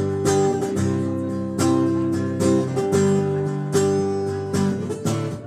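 Acoustic guitar strumming chords in a steady rhythm: the instrumental intro of a song, with no singing yet.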